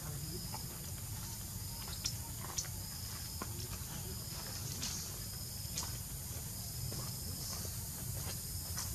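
Outdoor background noise with an on-and-off high insect buzz and a few scattered small clicks and rustles.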